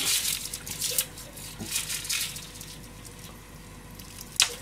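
Dry papery garlic skins crackling and rustling as cloves are peeled by hand, in a few short spells during the first half, with one sharp tick near the end.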